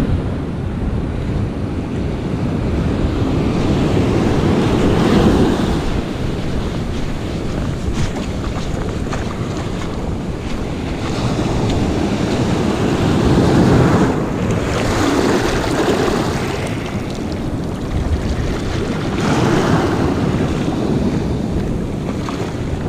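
Ocean surf breaking and washing up the beach in repeated swelling surges, with wind rumbling on the microphone throughout.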